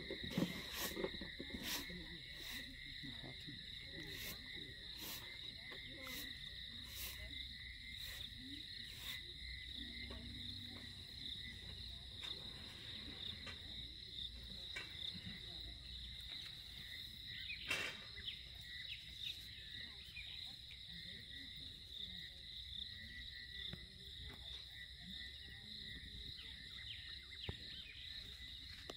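A steady high-pitched insect drone at two pitches. Sharp clicks come roughly every second for the first nine seconds, with one more later.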